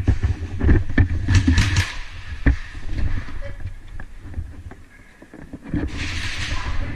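Rumbling wind and movement noise on the microphone in uneven gusts, with a few sharp clicks and knocks, the clearest about two and a half seconds in.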